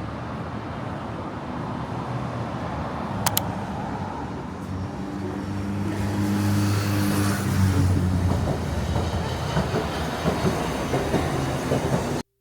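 A vehicle running steadily, with a continuous rumble, a hum that rises in the middle, a sharp click about three seconds in and light ticking near the end.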